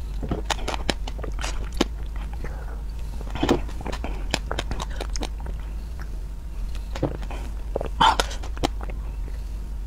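Close-miked mouth and eating sounds: scattered small clicks and smacks, with a louder sip or slurp about eight seconds in as a small cup of passion fruit drink is at the lips. A steady low hum runs underneath.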